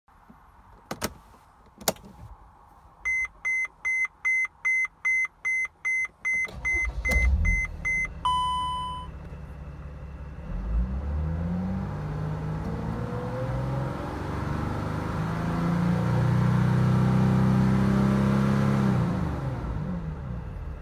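Mercedes Sprinter van: two clicks, then a warning chime beeping about three times a second while the engine cranks and starts, followed by a single chime. The engine then rises to a high speed, held steady for about seven seconds in a transmission stall test of a transmission said to be bad, and drops back toward idle near the end.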